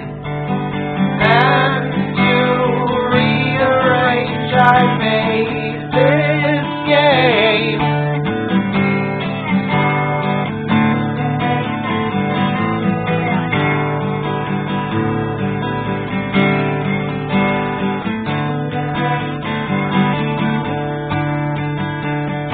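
Background music led by acoustic guitar, plucked and strummed, with a voice singing over it for the first several seconds.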